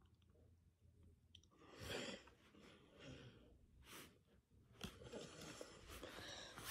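Faint handling of Pokémon trading cards: soft rustling with a couple of light clicks, and a soft breath about two seconds in.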